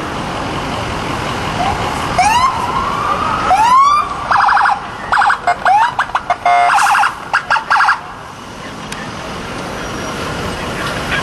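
Police car electronic sirens: two short rising whoops about two and three and a half seconds in, then about four seconds of rapid chirps and horn-like tones. After that the siren stops and steady city street traffic noise remains.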